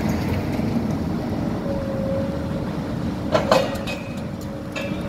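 Tracked demolition excavator working on a steel-framed building: its diesel engine runs with a steady low rumble, and a steady whine joins about two seconds in. Sharp metallic clanks and crashes of steel and debris come about three and a half seconds in, the loudest moment, and once more, smaller, near the end.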